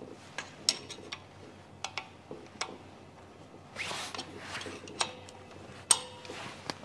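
Open-end spanner being fitted onto and tightening the union on a stainless-steel oil feed line on a Rotax 9xx engine: scattered light metallic clicks and taps with some handling rustle, one click near the end ringing briefly.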